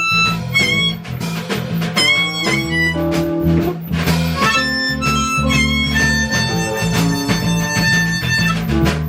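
Blues band playing: harmonica with several notes bent up into pitch and a long held note in the second half, over guitar and a low bass line.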